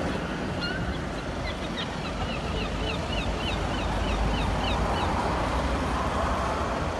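Steady outdoor rumble and hiss of wind and traffic. Over it, a quick run of short, rising high chirps repeats about four times a second, from about half a second in until about five seconds in.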